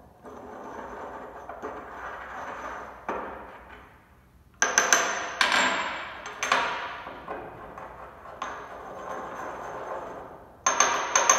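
Pestle grinding in a white ceramic mortar, crushing an antacid tablet to powder. A scraping grind for the first few seconds, then several sharp knocks of the pestle on the bowl from about four and a half seconds in, with more grinding between them.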